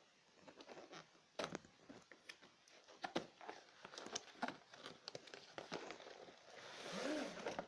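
Cardboard box and packaging being opened and handled: crinkling, rustling and scattered light knocks, with a longer, louder rustle near the end.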